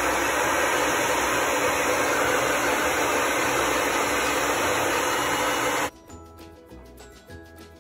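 Hair dryer blowing at a steady, loud rush of air. It cuts off suddenly about six seconds in, and quieter background music follows.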